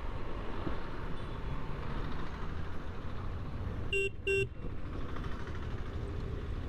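Steady low rumble of a KTM adventure motorcycle being ridden on the road. About four seconds in, a vehicle horn gives two short beeps in quick succession.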